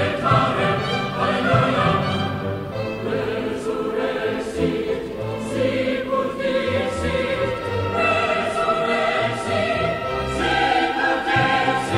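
Choir singing sacred choral music with orchestral accompaniment, in sustained notes over a moving bass line.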